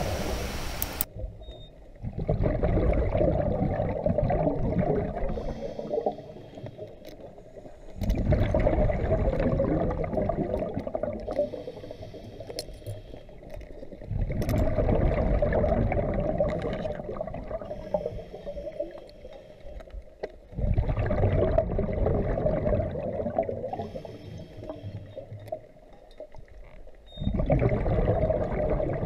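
Scuba diver breathing through a regulator underwater: five long bubbling exhalations about six seconds apart, each fading out, with a faint hiss from the regulator on each inhale in between.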